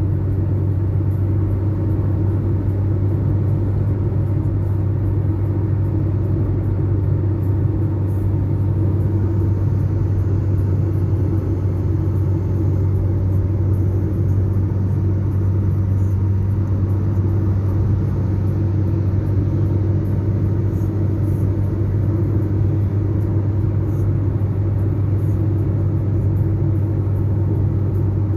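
Steady low drone of a motor vehicle on the move, engine and road noise heard from inside the cab, unchanging throughout.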